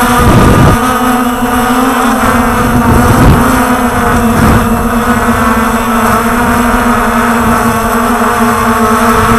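Walkera Tali H500 hexacopter's six rotors humming at a steady pitch in flight, heard close up from the onboard camera, with wind gusts buffeting the microphone about half a second in and again around three and four and a half seconds in.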